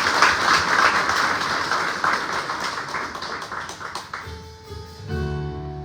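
A congregation applauding, fading out over about four seconds. Then a band starts the next song, with acoustic guitar and keyboard chords coming in near the end.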